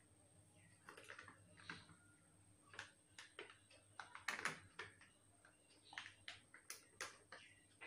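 Faint, scattered crinkles and clicks of a paper tissue and a small plastic cup being handled at the nose.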